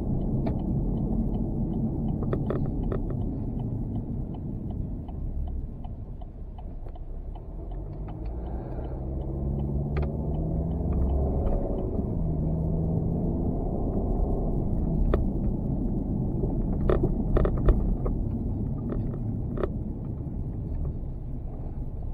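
Vehicle engine rumble heard through a loosely mounted GoPro, with the mount rattling and clicking against its fixing. The engine note climbs in pitch from about a third of the way in.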